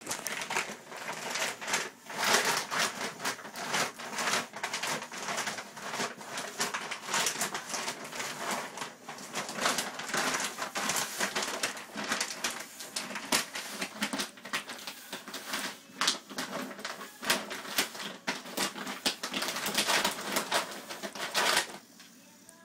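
English bulldog pawing and biting at a plastic sack of dry dog food: dense, irregular crinkling and rustling of the plastic, full of sharp crackles, which stops abruptly near the end.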